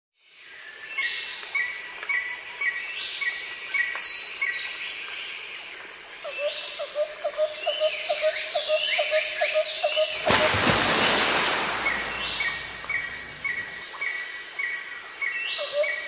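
Birds singing and calling in the woods: repeated short chirps and gliding whistled notes, with a low pulsing trill in the middle. About ten seconds in a loud, even rushing noise joins them.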